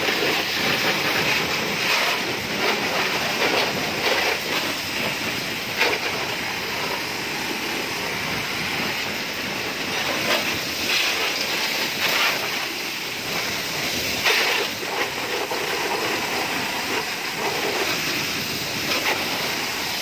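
High-pressure water jet from a spray hose hissing steadily as it rinses a motorbike, splattering on the bodywork and wet ground with louder spatters now and then.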